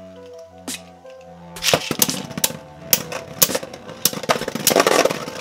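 Beyblade Burst spinning tops clashing in a plastic stadium: a rapid, uneven run of sharp clicks and knocks starts about a second and a half in and goes on to the end. Instrumental background music plays under them, with held notes at the start.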